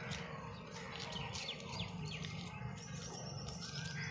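Small birds chirping, with a few quick falling chirps about a second in, over a steady low outdoor rumble.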